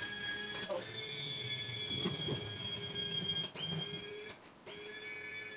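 Electric hydraulic pump of a Sea-Legs pontoon lift whining steadily as it drives the legs' hydraulic cylinders. It cuts out briefly a few times, the longest for about half a second around four and a half seconds in, and each time picks back up with a short rise in pitch.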